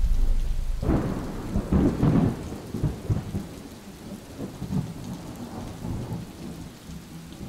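Thunderstorm: a clap of thunder about a second in that rolls and fades over several seconds, over steady rain.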